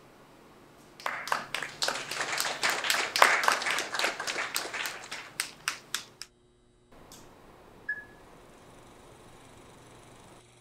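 A small group clapping for about five seconds, the claps thinning out as it dies away. Then a brief dead silence, and a short high beep.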